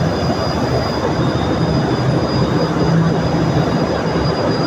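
Steady, loud low rumble, like a running vehicle or machine, with a thin high whine held steady throughout.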